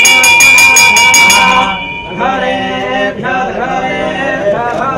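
Hanging brass temple bell rung by hand in quick, even strokes, about four or five a second, ringing on steadily until it stops about two seconds in. Then chanting of mantras begins.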